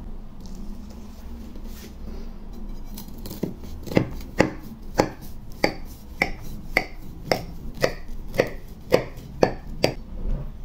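Large kitchen knife cutting down through a stack of thin chocolate pancakes, about a dozen sharp cutting strokes at roughly two a second, starting about three and a half seconds in.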